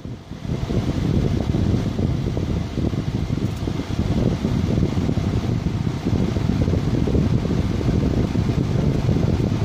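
Electric floor fan running, its air stream blowing across the microphone as a steady low rushing noise that dips briefly at the very start.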